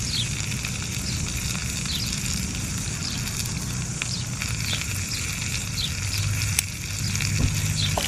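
Whole trout frying in hot olive oil in a pan on a gas burner: a steady sizzle with scattered small crackles and pops, over a low steady rumble.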